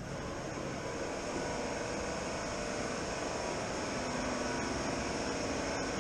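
A steady engine-like mechanical drone that grows louder over the first second or so and then holds.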